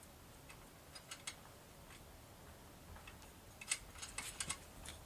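Faint, scattered clicks and light taps of hand work on the tractor's engine around the carburetor. Two come about a second in and a quick cluster follows about four seconds in; there is no engine running.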